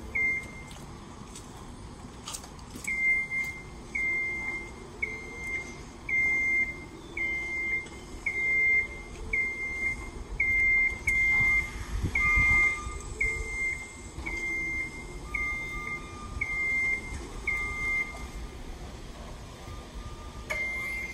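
A vertical mast personnel lift's motion alarm beeping in a steady rhythm, a single high beep a little faster than once a second, as the lift operates. The beeping starts about three seconds in and stops shortly before the end.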